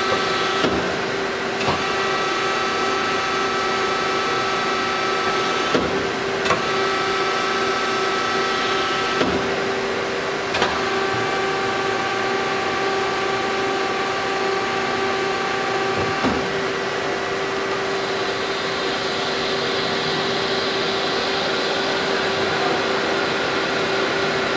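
KTAS 4060 beam straightening machine running as a welded H-beam feeds through its straightening rollers: a steady mechanical hum with a constant whine and several higher whines. Sharp clicks come now and then over the first two-thirds, each changing the higher whines, and a hiss grows near the end.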